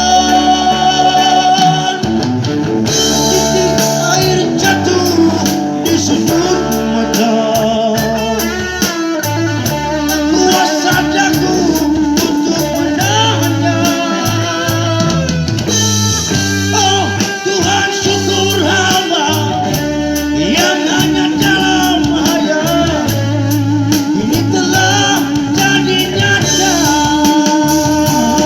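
Band music: a guitar-led instrumental passage over bass, between sung lines of the song.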